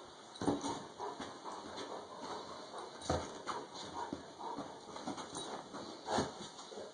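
A dog clambering over a bed and a sleeping person: irregular thumps and rustling of bedding, with some dog whimpering. The strongest thumps come about half a second, three seconds and six seconds in.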